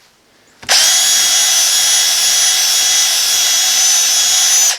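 Electric drill running at a steady high whine for about four seconds, boring a pin hole through a heart pine knife handle; it starts sharply under a second in and stops near the end.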